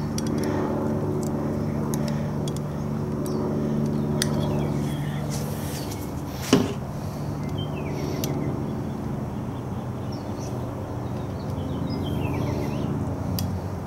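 A motor running steadily with a low hum, with scattered light clicks over it and one sharp click about six and a half seconds in.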